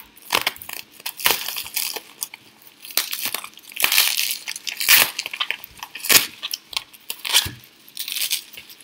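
Plastic bubble wrap crinkling and tearing in irregular bursts of crackles as it is cut with a box cutter and pulled open by hand.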